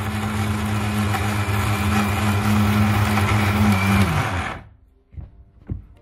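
Electric mixer grinder running steadily with a low hum as it mixes a dry ground powder. It is switched off about four and a half seconds in, and the motor winds down. A few light clicks of the jar being handled follow.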